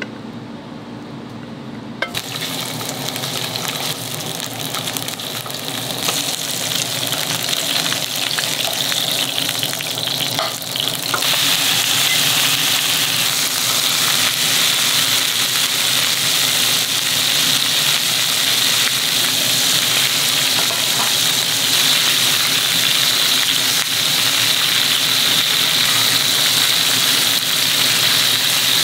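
L-bone steak searing with a steady frying sizzle. It starts about two seconds in and grows louder in steps, fullest from about eleven seconds on.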